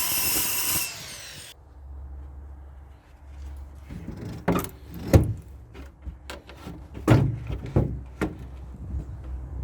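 A loud, high noise stops abruptly within the first second. Then wooden boards knock and thump while being handled, about six knocks between four and eight and a half seconds in, over a low steady hum.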